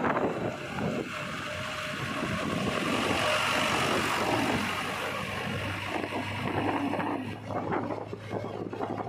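JCB 3DX backhoe loader's diesel engine running with a steady low hum as the machine drives along.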